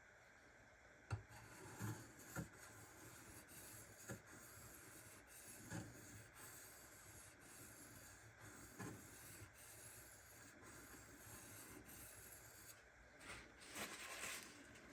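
Faint scraping of a steel knife blade being stroked back and forth on a Shapton Kuromaku 1500-grit whetstone, with a few light clicks scattered through it and a longer, louder scrape near the end.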